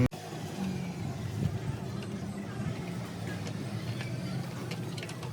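Steady low hum of a motor vehicle's engine running, with faint voices in the background.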